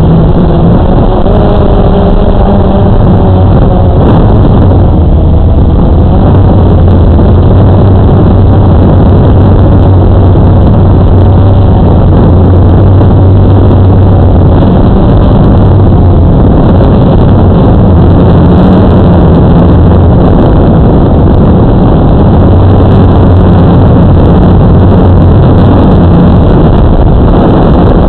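Quadcopter drone's electric motors and propellers running loud and close to the onboard microphone, a steady hum with small shifts in pitch as the drone manoeuvres.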